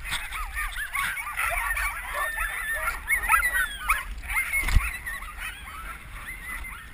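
A crowd of sled dogs yelping and howling over one another as the team takes off, with a single knock about two-thirds through.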